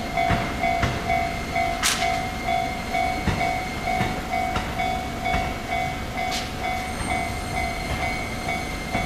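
Level-crossing warning bell ringing in an even, repeating two-tone pulse, with an E257 series electric train rolling slowly past, its wheels clacking irregularly over rail joints. Two of the clacks are sharper than the rest.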